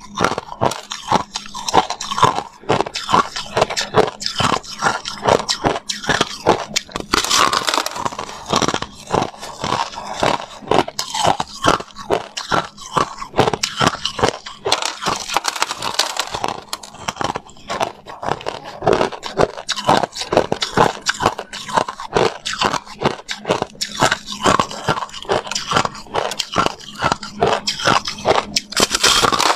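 A person biting and chewing white crushed ice close to the microphone: a continuous run of sharp, rapid crunches, several a second.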